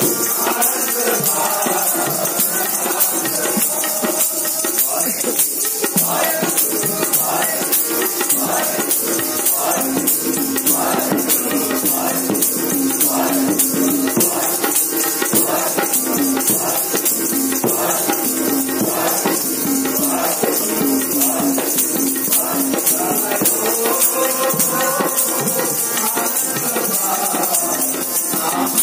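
Sikh kirtan music: a steady held harmonium tone and voices singing a repeating phrase roughly once a second, over continuous jingling percussion.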